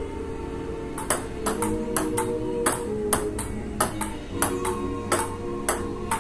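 Table tennis rally: a ping-pong ball clicking sharply off the paddles and the table top, the hits coming about every half second from about a second in, over background music.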